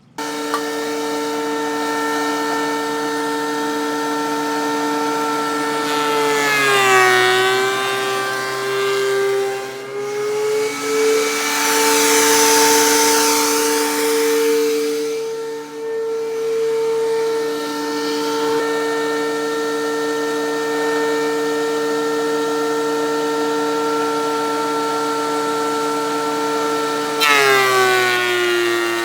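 DeWalt thickness planer running with a high, steady motor whine while a pine board is fed through it. The whine drops in pitch about six seconds in as the cutterhead takes the board under load, with a louder hiss of cutting for a few seconds in the middle, and it drops again near the end as the next pass begins.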